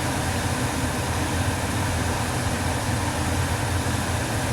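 Steady low rumble with an even hiss over it, unchanging: a gas stove burning under a pot of beef and broth boiling.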